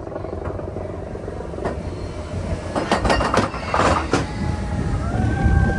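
Steel roller coaster train running along its track: a steady low rumble, with a cluster of sharp clacks about three to four seconds in and a brief high wheel squeal near the end.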